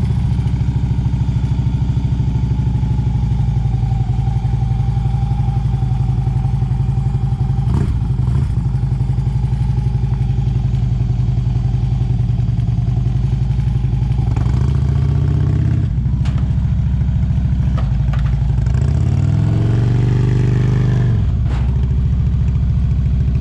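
Motorcycle engine running steadily at low revs, rising in pitch twice in the second half as it is given throttle to ride the bike up onto a trailer, with a few brief clanks.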